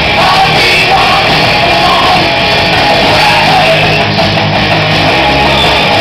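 Live rock band playing loud: electric guitar, bass guitar and drum kit, with a shouted, sung lead vocal.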